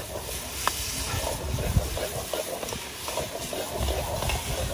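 Stir-fry hissing and sizzling in a wok over a fierce stove fire, with a low rumble from the flame that swells around the middle and again near the end.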